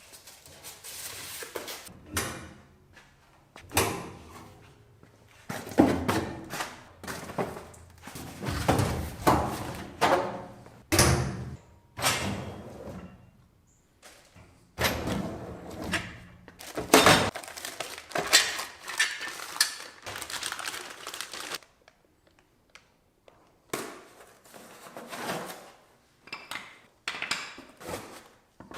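A boxed steel welding cart being unpacked and handled: irregular thunks and knocks of metal parts, with stretches of rustling and scraping, and a short lull about two-thirds of the way through.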